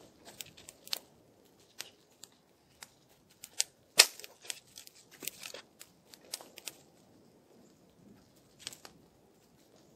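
Irregular sharp snaps and crackles, one much louder about four seconds in, from frozen leaf litter and stiff tent fabric being handled at the foot of a canvas tent.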